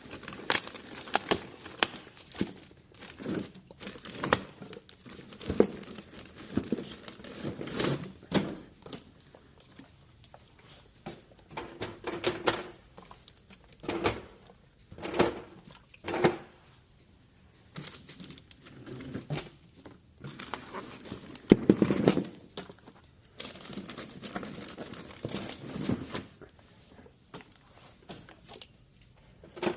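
Plastic snack packaging crinkling and rustling as it is handled, with scattered clicks and knocks throughout.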